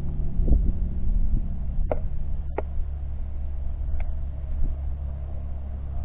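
Float plane's engine droning low and steady on the lake just after landing. Two sharp clicks come about two seconds in, and a fainter one a couple of seconds later.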